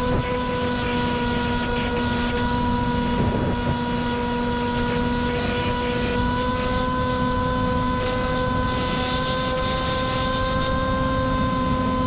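FPV flying wing's electric motor and propeller whining at a steady pitch that creeps slightly upward, heard on board through heavy wind buffeting on the microphone.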